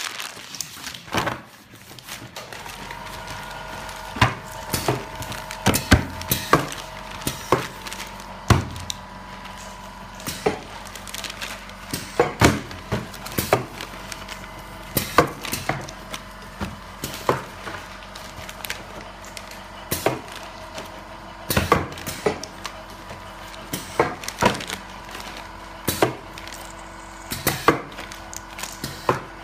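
Semi-automatic coffee valve applicator machine at work: a steady hum that starts about two seconds in, under repeated sharp clacks every second or two, often in quick pairs, as one-way degassing valves are pressed into coffee bags.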